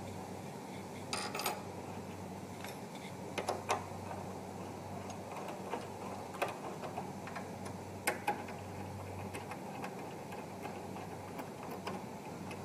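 Light, irregular metal clicks and taps as a stainless-steel mounting bracket and its guide rods are handled and screws are fitted into it, over a steady low hum.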